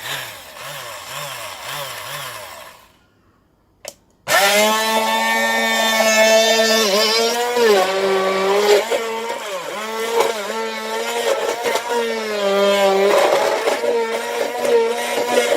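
Immersion blender motor switched on with a click about four seconds in, then running with a strong whine whose pitch dips and recovers several times as the blades meet load. Before that comes a quieter wavering sound that pulses about four times a second, followed by a short gap.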